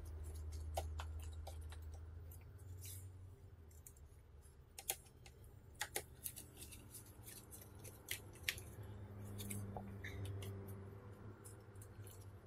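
Small scattered clicks of a screwdriver working the side screws out of a laptop LCD panel's frame, over a low steady hum.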